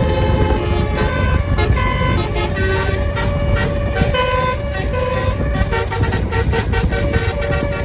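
Basuri telolet multi-tone horn on a bus playing a fast melody of short horn notes that jump from pitch to pitch. The bus's engine keeps a steady low rumble underneath.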